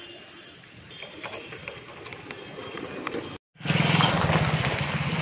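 A motor vehicle engine running steadily under outdoor noise. After an abrupt cut about three and a half seconds in, a louder, steady low engine hum.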